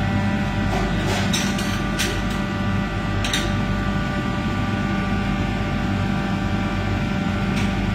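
Steady drone of commercial kitchen ventilation, with a constant low hum and fixed tones, the running of the exhaust hood fans. Over it come a few short, sharp clinks of utensils or dishes, the first about a second in and the last near the end.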